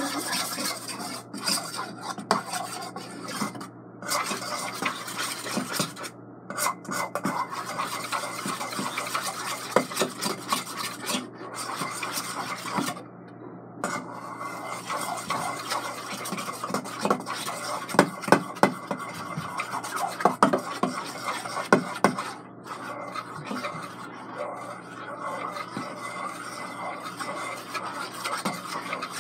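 Spoon stirring and scraping through white glue in a stainless steel mixing bowl, with frequent clicks of the spoon against the metal and a few short pauses, as red gel food colouring is mixed in for slime.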